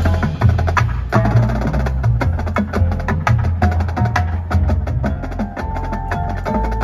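High school percussion ensemble playing: mallet keyboards such as marimbas together with drums, a dense run of fast struck notes over deep sustained bass notes.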